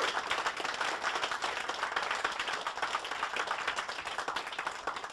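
A room of seated people applauding, many hands clapping together, the clapping thinning out near the end.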